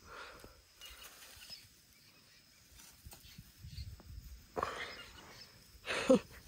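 Soft rustling and scuffing as a hand rubs a Pedi sheep's head and wool, with a few low thumps about four seconds in. Near the end, a short voice falling in pitch.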